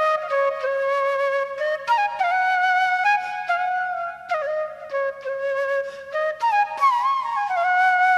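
Background music: a flute playing a slow melody with held notes and slides between them.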